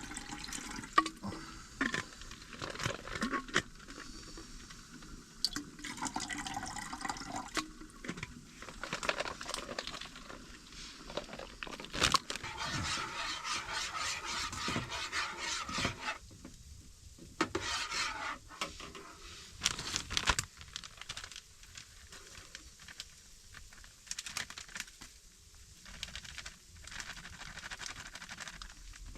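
Water pouring and splashing, mixed with scattered clicks and knocks.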